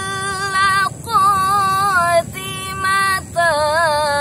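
A woman reciting the Qur'an in the melodic tilawah style, holding long drawn-out notes with wavering ornaments, broken by three brief pauses.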